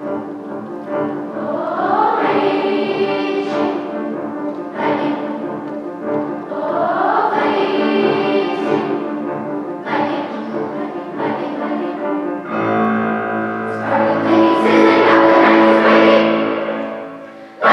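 Large children's choir singing, with two rising vocal swoops, then building into a loud, full held chord over the last few seconds.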